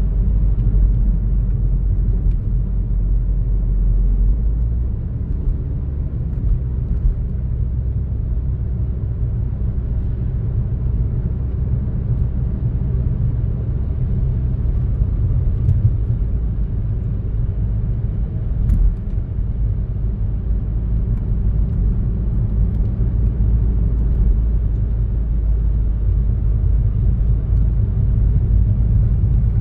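A car driving along a road: steady low rumble of engine and tyre noise, with the deepest part easing slightly about five seconds in.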